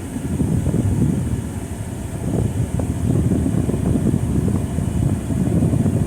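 Steady road and engine noise inside a moving car's cabin, with the air conditioning blowing.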